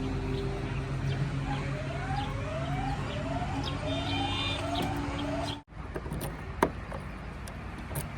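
Mahindra backhoe loader's diesel engine running steadily, with a string of quick rising whoops, about two a second, over it. After about five and a half seconds the engine sound cuts off abruptly, and a quieter stretch with a few sharp clicks follows.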